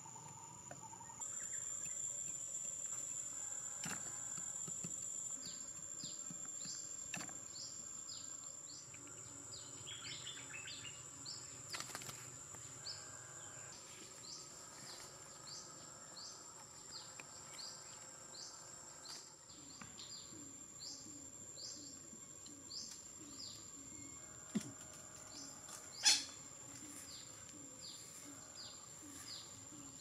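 Forest ambience: a steady high-pitched drone of insects such as cicadas, with a small bird repeating a short chirp one or two times a second. A few sharp clicks stand out, the loudest about 26 seconds in.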